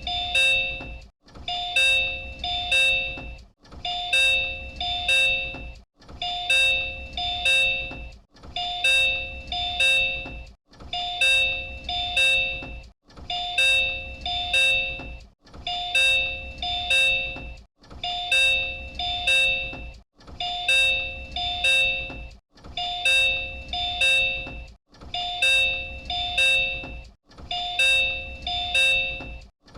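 Door chime of a Disney Resort Line Type 10 monorail car, the door-warning chime also used on JR Central trains. A two-tone chime repeats over and over with a short break between repeats, about once every two and a half seconds, played as an endless loop.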